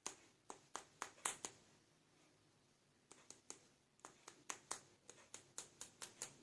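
Hard plastic toy pieces clicking and tapping as they are handled: a handful of small, sharp clicks in the first second and a half, then after a pause a quicker run of about a dozen and a half clicks.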